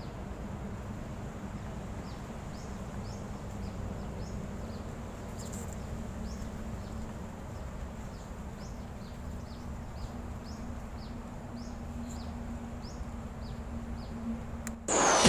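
Small birds chirping, short high downward-sliding chirps repeated every second or so, over a steady low outdoor hum. A sudden loud burst of noise cuts in at the very end.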